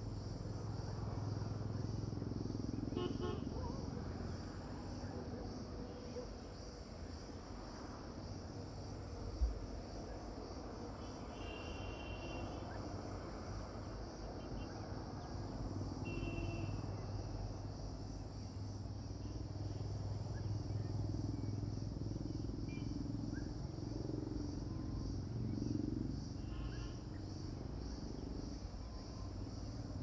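Steady, high-pitched chorus of insects, crickets or similar, pulsing without a break over a low background rumble. A few short chirps come through now and then, and a single sharp thump sounds about nine seconds in.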